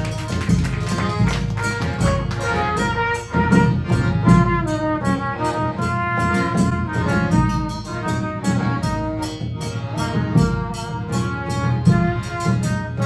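Chindon band playing an instrumental passage live: trumpet carries the melody over accordion, with a large bass drum and chindon drums beating time.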